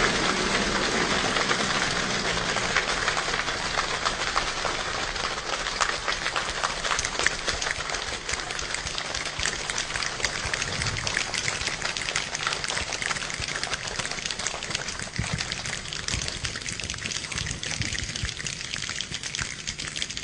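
A group of people imitating rain with their fingers and hands: a dense patter of snaps, claps and pats, like heavy rain easing off after the thunder. It slowly gets quieter and thinner, like the storm dying down.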